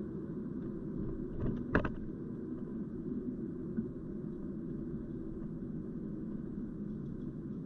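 Steady low rumble of a car's engine and tyres on the road, heard from inside the cabin while driving along a city street. A couple of short knocks come about a second and a half in.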